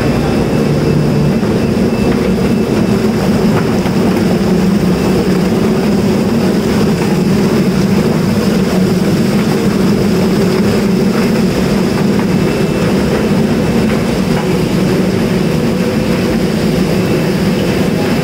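Drum-type chicken plucker running with birds inside: its motor spins the rubber-fingered plate and the carcasses tumble against the steel drum, making a loud, steady mechanical din.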